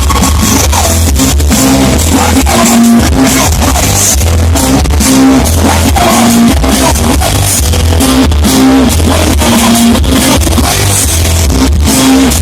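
Live hard rock band playing: electric guitars, bass and a drum kit in a steady repeating groove, with singing, recorded from the crowd at a very high level with poor, overloaded sound.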